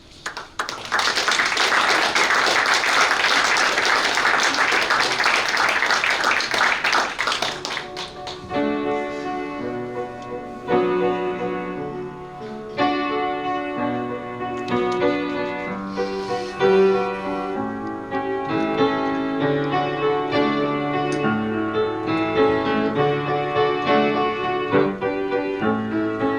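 Audience applause for about seven seconds, then a piano starts playing an interlude of notes and chords.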